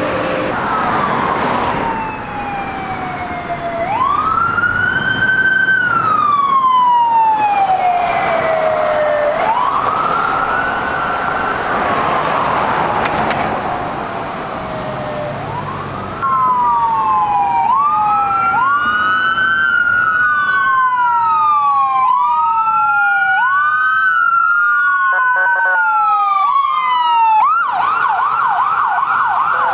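Emergency vehicle sirens on the road: first a slow wail rising and falling about every five to six seconds, then, about halfway through, two sirens wailing faster and overlapping. Near the end the siren switches to a rapid yelp as an ambulance passes close by.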